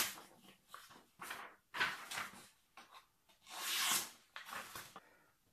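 Freshly sharpened kitchen knife slicing through a hand-held sheet of paper in several short strokes, with the paper rustling; the razor-sharp edge cuts the paper by the knife's own weight.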